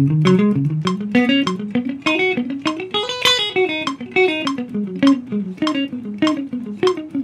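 Clean-toned Les Paul-style electric guitar playing an A minor pentatonic scale in evenly picked sixteenth notes. The notes climb to the top about three seconds in and then run back down.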